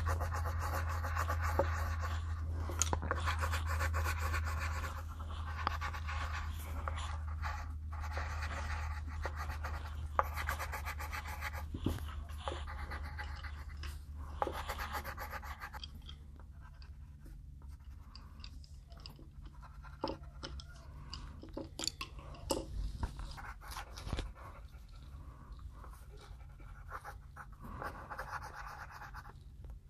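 Coloured pencils scratching on paper in quick back-and-forth colouring strokes, coming in spells and louder in the first half, over a steady low hum that fades about halfway through.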